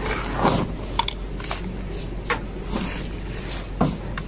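Torque wrench working on a gearbox oil plug, tightening it to 30 Nm: a handful of separate sharp metal clicks, unevenly spaced, about half a second to a second apart.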